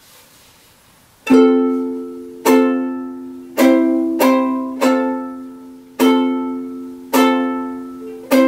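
Ukulele strummed in a repeating rhythmic ostinato: single chord strums in a long, long, two quick, long pattern ('toum ta toum-toum ta'), each strum ringing and fading before the next. The strumming starts about a second in.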